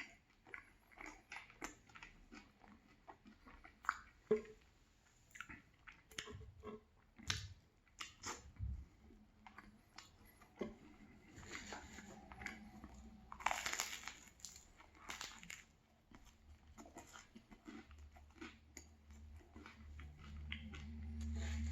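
Close-up chewing and biting of a banh mi sandwich on a crusty baguette: crunches and small wet mouth clicks, with a louder stretch of crunching about two-thirds of the way through. A low hum comes in near the end.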